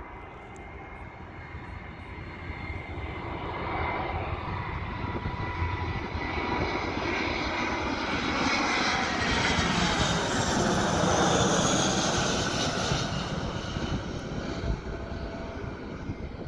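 Airbus A319-114 jet airliner on final approach, its twin CFM56 turbofans growing louder as it nears and passes low overhead, loudest about ten to twelve seconds in, then fading as it flies on toward the runway. As it goes by, a high whine falls in pitch.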